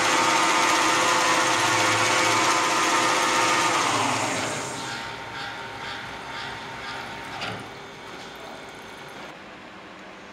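CNC lathe spindle, driven by a 2 HP motor, running loud with a steady whine, then spinning down with a falling pitch about four seconds in. Afterwards the machine is much quieter: a run of light ticks about two a second, ending in a sharper click, over a low hum.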